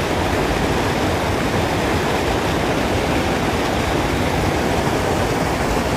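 Water pouring over a spillway weir: a steady, even rush of falling white water.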